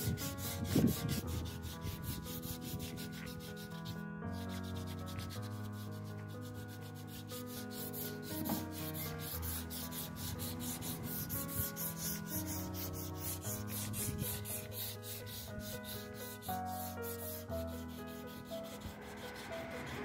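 Sandpaper rubbed by hand in quick back-and-forth strokes over the painted metal door of a Samsung single-door fridge, scuffing off rust and peeling paint before repainting. Steady background music plays underneath.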